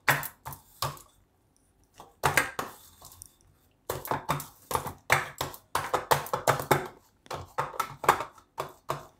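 Steel bowl pressed and patted against a steel plate to spread soft gram-flour dough: a run of irregular metal taps and scrapes, with a short pause about a second in.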